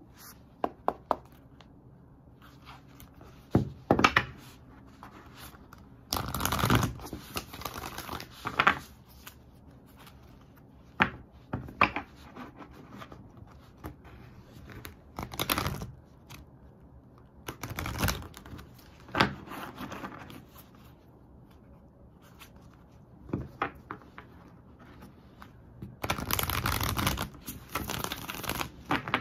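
A deck of oracle cards shuffled by hand: bursts of riffling and sliding cards, the longest near the end as the deck is riffled and bridged, with sharp snaps and taps of the cards in between.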